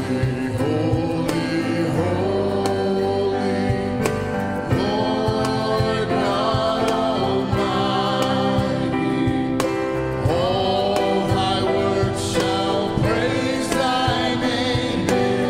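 Worship singing: voices sing a hymn together in sustained, swelling lines over instrumental accompaniment.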